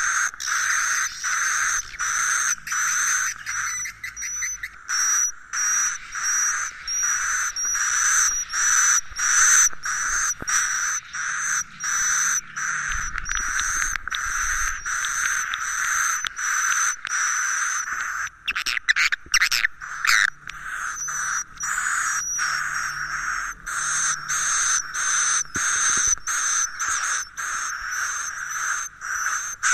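Swiftlet roosting-call track (suara inap): rapid chirping calls of edible-nest swiftlets, repeating about two a second, with a short run of quicker sweeping twitters about two-thirds through. It is the lure sound played in a swiftlet house to make the birds stay and roost there.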